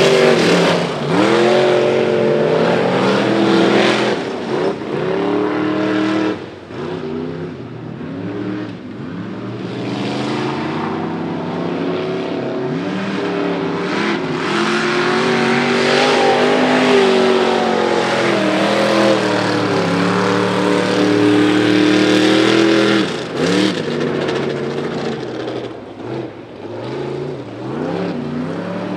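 Mud-racing truck engine revving hard around a dirt track, its pitch climbing and falling again and again as the throttle is worked and gears change, over the noise of tyres throwing dirt and mud. The engine drops back briefly about a quarter of the way in and again near the end.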